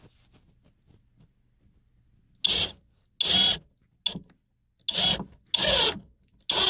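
Power drill-driver sinking a long screw up at an angle through a pre-drilled 2x4 into the floor framing, run in six short bursts of the trigger that start about two and a half seconds in. The screw is pulling the board tight and pushing the soft subfloor back up.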